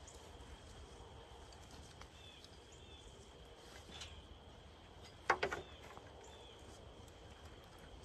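Quiet outdoor background with a faint steady high-pitched drone and a few faint chirps. About five seconds in, a brief rattle of several sharp clicks and knocks.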